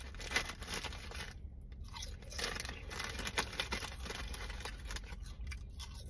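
Lay's Classic potato chips being crunched and chewed, a run of irregular crisp crunches.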